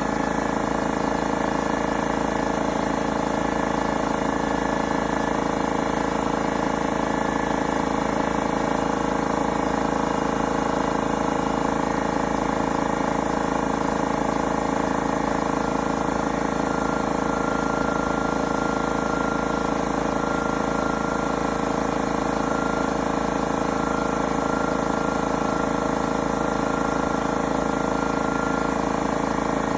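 Husky 175 psi electric air compressor running steadily under load, its motor and pump refilling the tank toward a 130 psi cut-out.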